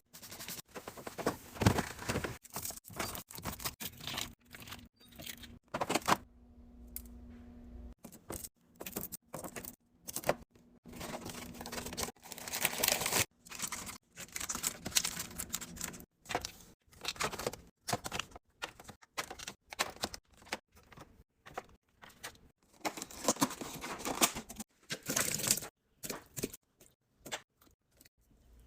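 Snack packaging rustling and crinkling while items click and clatter as they are handled and set in place, in short irregular bursts, with a faint steady hum during a lull a few seconds in.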